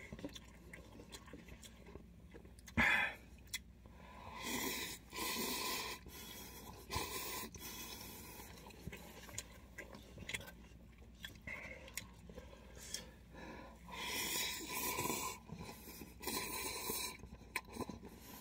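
A person slurping and chewing instant cup noodles eaten with wooden chopsticks, in several noisy slurps of a second or two each. There is a single sharp click about three seconds in.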